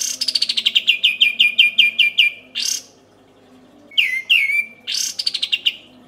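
Caged olive-winged bulbul (kapas tembak) singing its fast rolling 'tembakan' song. A quick run of about a dozen short notes, each dropping in pitch, lasts some two seconds, and after a pause of about a second a second rolling phrase follows.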